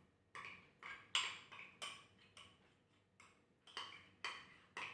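A kitchen utensil knocking and scraping against a bowl or measuring cup while honey is transferred: about ten light clicks and taps at uneven intervals.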